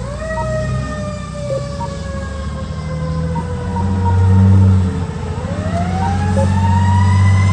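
Fire truck siren heard from inside the cab, winding up fast, sinking slowly in pitch for several seconds, then winding up again. The truck's engine drones beneath it and swells twice.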